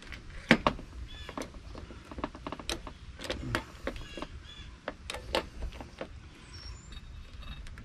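Hand pop rivet gun setting 3/16-inch pop rivets into the end of an RV awning roller tube: a run of sharp metallic clicks as the handles are squeezed and the rivet mandrels pull through and snap, irregular and roughly two a second, the loudest about half a second in.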